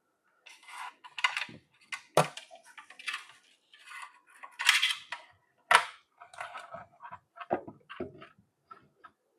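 Irregular clinks, knocks and short scrapes of small metal parts and tools being handled, with no motor running.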